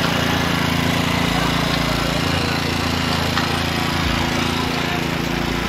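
An engine running close by at a steady, even speed.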